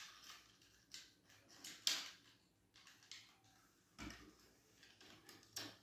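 Scattered clicks and knocks of a plastic Transformers Armada Red Alert toy being handled as its parts are moved and snapped into place, the loudest about two seconds in.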